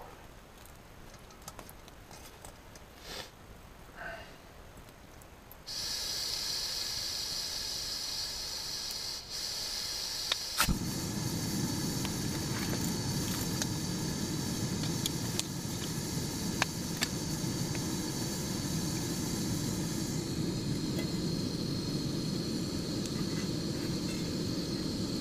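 Primus gas camping stove: a steady hiss of gas starts suddenly about six seconds in, then a sharp click as the burner lights about ten seconds in, after which the flame burns with a steady low rush under the hiss.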